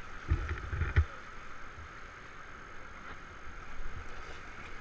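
River water rushing around an inflatable raft running choppy whitewater short of the main rapid. A few loud low thumps in the first second, and a weaker one near the end.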